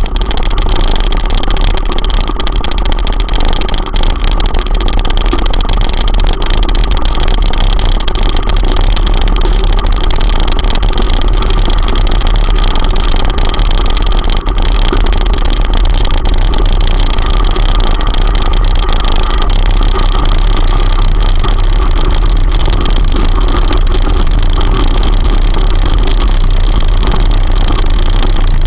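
Steady, loud wind buffeting and tyre rumble on a gravel track, picked up by a bicycle's handlebar-mounted camera while riding.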